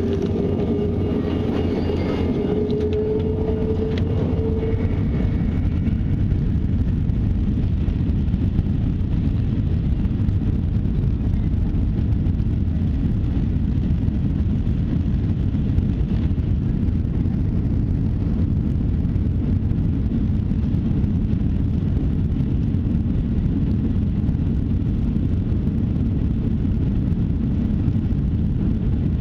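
Airliner jet engines heard from inside the cabin, spooling up for takeoff: a whine rises slowly in pitch over the first few seconds, under a loud, steady low rumble that continues throughout.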